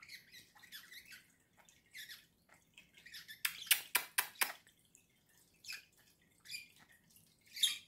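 Budgerigar chattering in short, high chirps and clicks, with a quick run of about six loud, sharp clicks near the middle.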